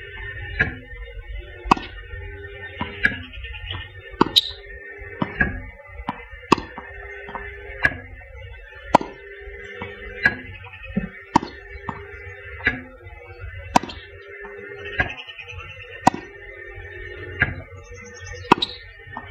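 Tennis balls being fired by a Slinger ball machine and struck with a racket: a sharp pop about every second, evenly paced, over a steady hum.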